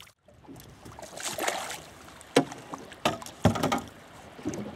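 Water splashing as a hooked striped bass thrashes at the surface beside a boat and is scooped into a landing net, with a sharp knock about halfway through and a few more short splashes and knocks after it.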